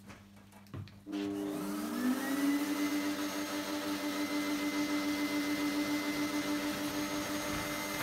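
Festool dust extractor motor starting about a second in, spinning up to a steady whine over a second or so and then running evenly at its lowest speed setting.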